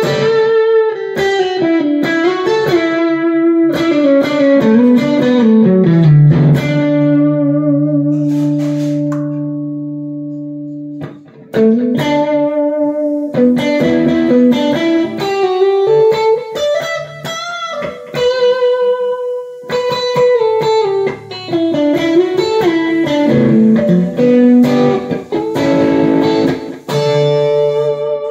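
Harley Benton Fusion 2 electric guitar with alnico pickups, played through an amp as a melodic single-note lead line. About six seconds in it runs down to a low note that is left to ring and slowly fade, and the playing resumes about halfway through.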